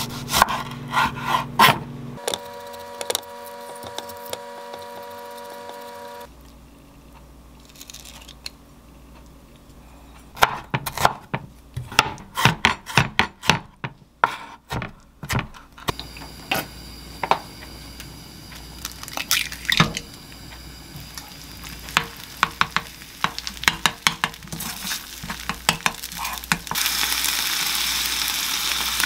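Chef's knife cutting and dicing a tomato on a wooden cutting board: a run of sharp knocks of the blade on the wood. Near the end, an egg starts sizzling as it fries in a pan.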